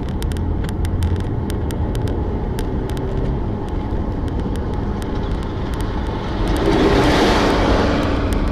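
Steady engine and road rumble heard from inside a moving car, with faint sharp ticks throughout. A louder rush swells up about two-thirds of the way in and dies away near the end, like another vehicle passing close by.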